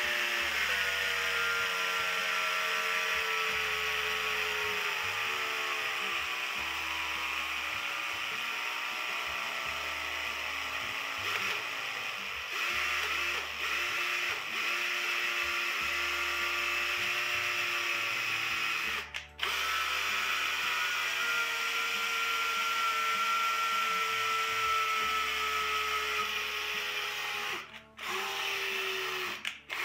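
DeWalt cordless drill motor running on an old NiCad battery pack with the trigger held: a steady whine that slows and drops in pitch over the first several seconds, then holds. It stops briefly about two-thirds of the way through and twice near the end.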